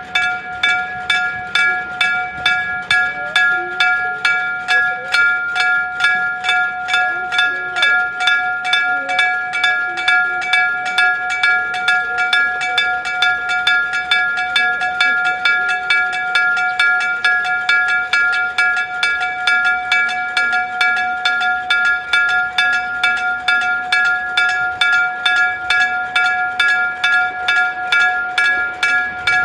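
Electric bell of a Japanese railway level crossing ringing in a steady, rapid series of about three strikes a second. The warning is sounding for an approaching train.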